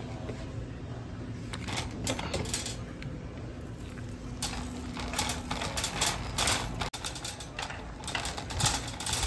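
Wire shopping cart rattling and clattering as it is pushed over a tiled floor: a run of small clicks and knocks that grows much busier about halfway through.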